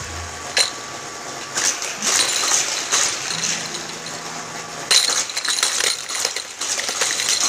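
Baby toys clinking and jingling as they are handled, a run of small irregular clicks and rattles.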